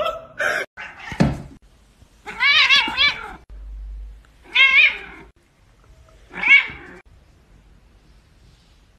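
Domestic cat giving three drawn-out yowling meows, each with a wavering pitch, spaced about a second and a half apart.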